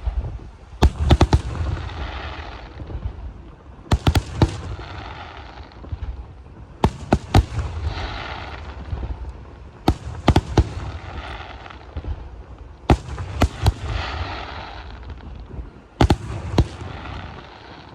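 Aerial firework shells bursting in six volleys about three seconds apart, each a cluster of sharp bangs followed by a hissing, crackling tail that lasts a second or two.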